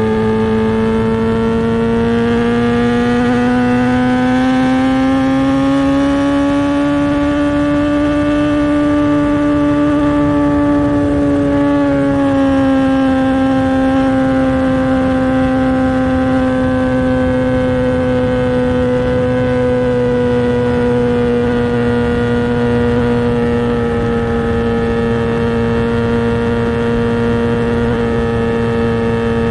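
Kawasaki ZX-10R inline-four with an SC-Project exhaust running at steady high revs. Its pitch climbs slowly over the first ten seconds, dips slightly about twelve seconds in, then eases back down and holds.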